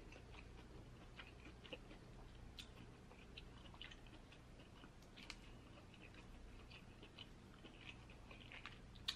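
Faint crackling and clicking of shellfish shell being picked apart by hand, mixed with quiet chewing, and one sharper click near the end.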